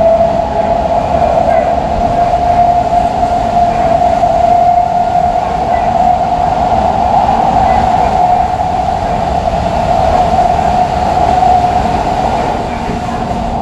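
Interior running noise of an Odakyu 3000-series electric train motor car, fitted with a Mitsubishi IGBT-VVVF inverter and six-pole induction motors, travelling between stations: a steady hum over the rumble of wheels on rail, easing slightly near the end.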